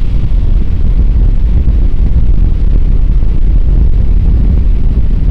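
Steady wind rush buffeting the microphone of a sport motorcycle riding at about 40 mph, with the bike's engine running underneath.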